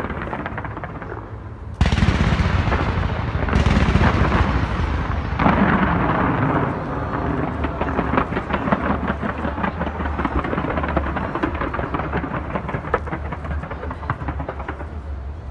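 Fireworks display: a sudden loud volley of bangs about two seconds in, further surges a couple of seconds apart, then a long run of rapid crackling.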